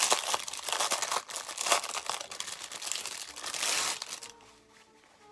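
Packaging crinkling and rustling as a tote bag is unwrapped by hand, with sharp crackles, stopping about four seconds in.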